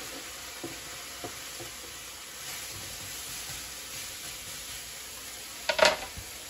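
Diced onions sizzling steadily in hot oil in a skillet as they are scraped in with a spatula, with a few light scrapes and taps. A brief clatter about six seconds in is the loudest sound.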